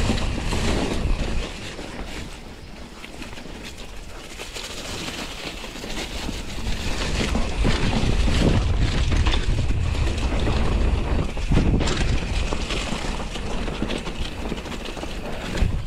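Wind buffeting the microphone over the rumble and rattle of a mountain bike riding a dirt trail, growing louder after a few seconds, with a few sharp knocks.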